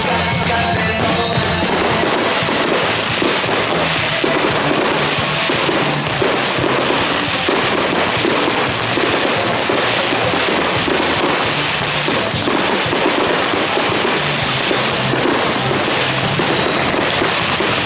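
Fireworks going off in a rapid, dense run of bangs and crackles from about two seconds in, over loud show music.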